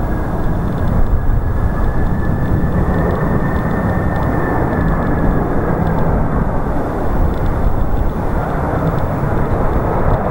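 Jet engines of a three-engined McDonnell Douglas MD-11F freighter on landing approach: a loud, steady rumble with a high engine whine that rises slightly and then fades about six seconds in as the aircraft passes.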